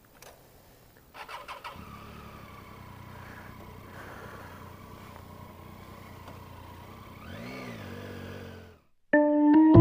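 A few clicks about a second in, then a motorcycle engine idling steadily, with one short blip of the throttle near the end before it cuts off. Heard through a helmet intercom microphone.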